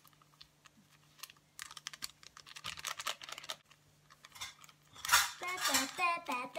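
Small paper sachet being crinkled and torn open by hand, a quick run of crackles. About five seconds in, a child's voice starts.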